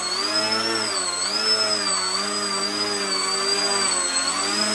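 Electric motor and propeller of a small foam 3D RC airplane hovering nose-up, a steady whine whose pitch keeps rising and falling as the throttle is worked to hold the hover, with a brief dip about a second in.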